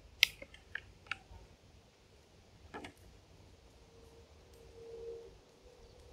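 A few sharp clicks and light knocks as a pork shoulder is handled and lifted over a small kettle barbecue, the loudest about a quarter second in. A faint steady hum comes in about four seconds in.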